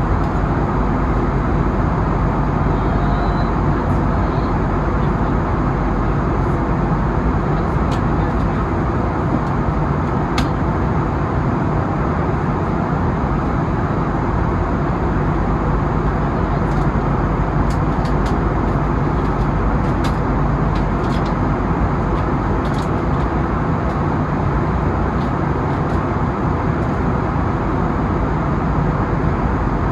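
Steady engine and air noise inside the cabin of an Airbus A320neo-family jet, holding level throughout, with a few faint ticks and rattles.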